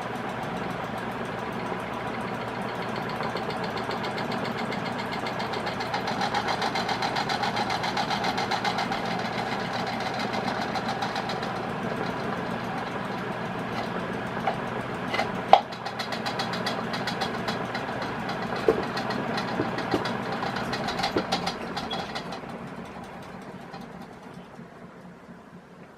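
Palco Carib 36-inch industrial ceiling fan running at full speed straight off the mains with no speed regulator fitted: a steady motor hum with air noise from the blades. A few sharp clicks come about fifteen to twenty-one seconds in, and the sound fades away over the last few seconds.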